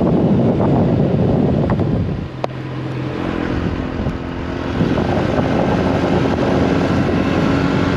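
Motorbike engine running while riding, with wind buffeting the microphone. About two and a half seconds in, the wind noise eases and the engine's steady hum comes through more clearly.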